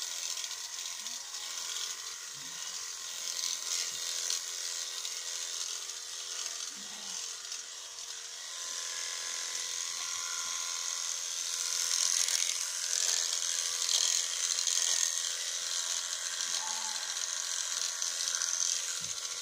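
Electric sheep-shearing clippers running steadily as they cut through a sheep's fleece, a continuous high buzz that grows somewhat louder about twelve seconds in.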